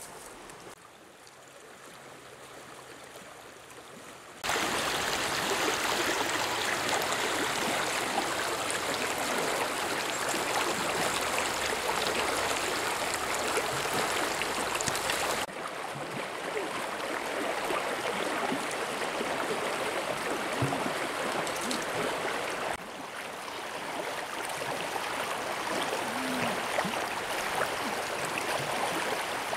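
Shallow river water flowing and rippling, a loud, even rush that starts suddenly about four seconds in and drops a little in level twice later on.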